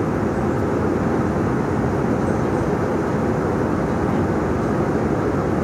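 Steady cabin noise of a jet airliner in flight: engine and airflow noise heard from inside the cabin at a window seat, even and unchanging.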